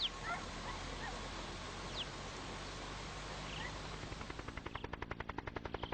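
A helicopter's rotor beating in a rapid, even chop that fades in about four seconds in, over open-air background hiss with a few faint bird chirps.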